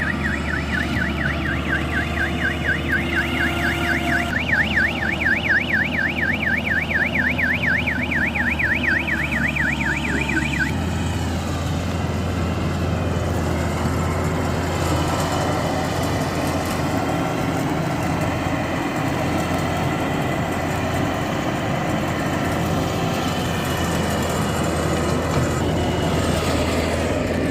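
Rice combine harvester's engine running steadily, with a warbling electronic alarm, about four rises a second, that stops about ten seconds in. The alarm is the signal that the grain tank is full and ready to unload.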